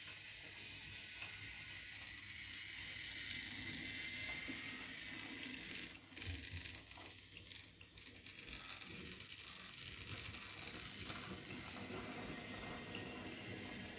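Toy train's small motor and gears whirring steadily as it runs, with a cluster of clicks and a brief dip about six seconds in.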